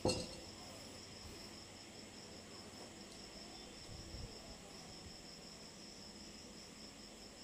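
Crickets chirping steadily in a high, pulsing trill. A sharp knock right at the start and faint handling sounds come from the metal exhaust pipe being worked into place by hand.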